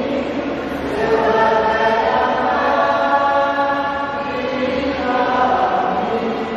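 Church choir singing, with long held notes.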